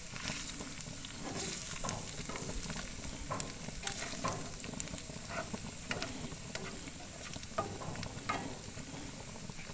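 Spatula stirring and turning macaroni in a frying pan, with irregular scrapes and taps against the pan over a steady sizzle of the macaroni reheating in butter.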